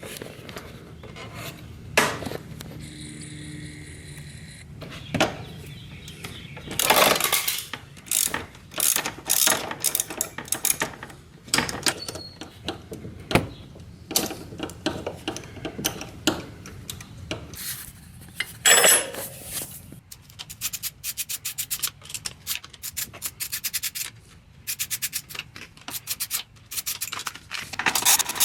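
Ratchet wrench clicking in quick runs, mixed with scraping and knocks of hand tools on metal.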